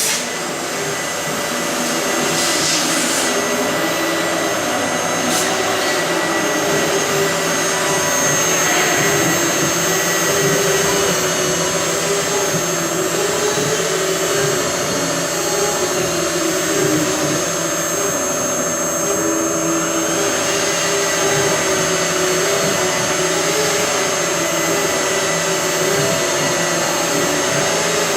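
FL-6090 CNC router engraving wood: the spindle runs with a steady high whine over the cutting noise, and a lower machine tone wavers up and down as it works.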